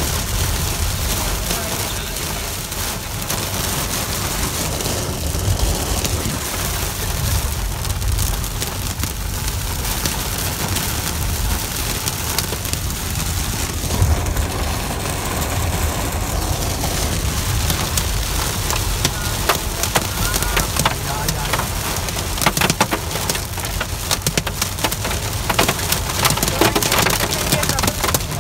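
Hail and heavy rain pelting the car's roof and windshield, heard from inside the cabin: a dense rattle of hard impacts over a low rumble, the strikes growing sharper and more frequent about two-thirds of the way in.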